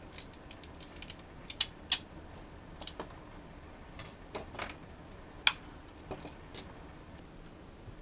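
A 2.5-inch laptop hard drive being worked out of and into a black plastic drive bracket by hand, giving an irregular scatter of sharp clicks and taps. The loudest taps come about two seconds in and again about five and a half seconds in.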